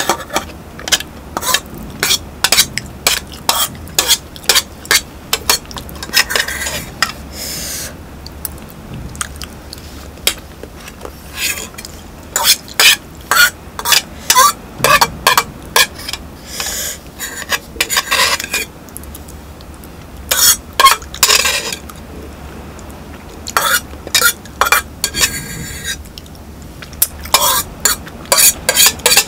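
Metal fork scraping and clinking against a small metal pot in many quick, sharp taps with a few longer scrapes, gathering the last of the noodles and sauce from the nearly empty pot.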